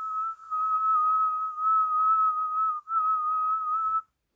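A person whistling one steady high note, broken twice by short dips, stopping about four seconds in.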